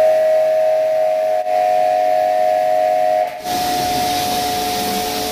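Pressure-washer pump running with a steady high whine while its water jet hisses against an air-conditioner unit; the spray hiss grows louder about three and a half seconds in.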